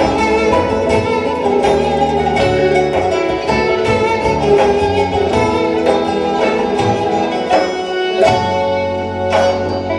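Instrumental interlude of a Turkish folk song, played by an ensemble of bowed and plucked string instruments, with no singing.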